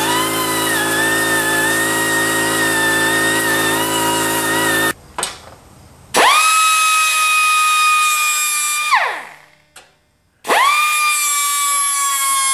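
Small pneumatic abrasive tool whining as it works surface rust off the tractor's steel console, its pitch dipping and recovering under load; it stops abruptly about five seconds in. After a short pause, a small air cutoff/grinding tool spins up to a steady high whine as it grinds the sheet steel, then winds down, and does the same again near the end.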